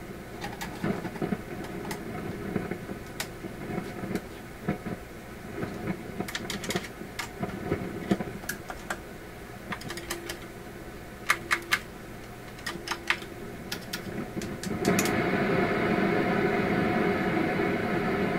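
PYE 39HC valve shortwave receiver's loudspeaker giving a steady hum and hiss broken by irregular sharp crackles and pops. About fifteen seconds in, the noise suddenly jumps louder and stays up. The owner puts this noise down to a dirty volume control.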